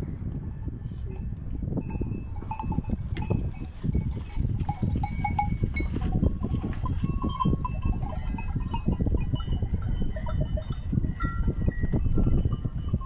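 A large flock of sheep moving past close by, the bells on the animals clinking in short, irregular rings over a steady low rumble.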